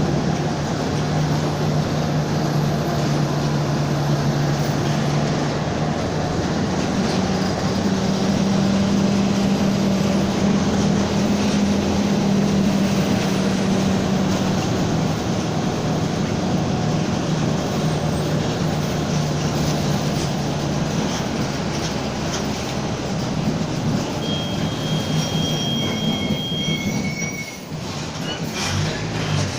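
Mercedes-Benz OF-1722M city bus under way, heard on board: engine and drivetrain running with a steady low growl from the driveshaft in second gear. The growl rises in pitch for several seconds in the middle. A brief high whistle comes near the end.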